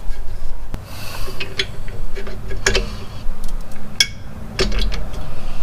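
Metal hand tools and bump-stop hardware clinking and clicking against the Jeep's rear suspension mount as the bump stop is fitted: several sharp, short clicks, the loudest a little past halfway, over a steady low rumble.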